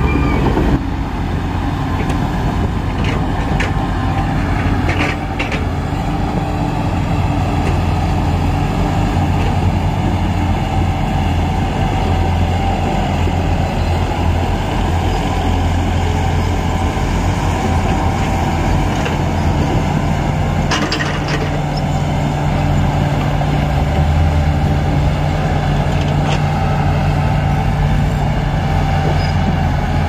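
Shantui crawler bulldozer's diesel engine running steadily under load as it pushes wet earth, with a few brief clanks: two in the first few seconds and one about two-thirds of the way through.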